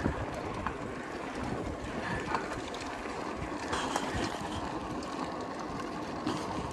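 Bicycle rolling along an asphalt street: a steady tyre-and-wind rumble with a few faint clicks, the wind buffeting a chest-mounted microphone.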